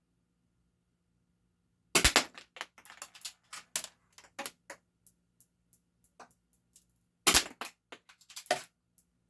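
Game Face M311 full-metal spring-powered airsoft pistol being shot and cocked by hand. Sharp snaps come about two seconds and about seven seconds in, with lighter metallic clicks and rattles between them.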